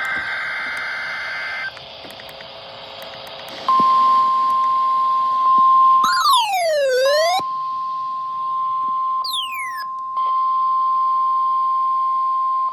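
NOAA Weather Radio weekly test alert on weather radio receivers. It opens with a short burst of buzzy data tones, then the steady warning alarm tone sounds from about four seconds in. Sweeping alert tones glide down and back up over the alarm tone twice along the way.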